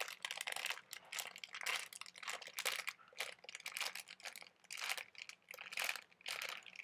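Plastic packaging crinkling as it is handled, in a run of irregular short crackles.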